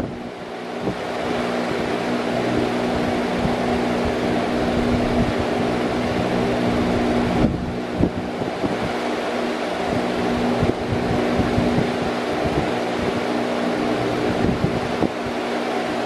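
Large electric fan running steadily: a constant rush of air over a steady motor hum. The level dips briefly at the start and then recovers.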